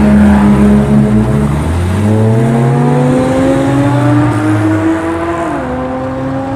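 A car engine under acceleration, its note climbing steadily in pitch, then dropping at an upshift about five and a half seconds in and climbing again.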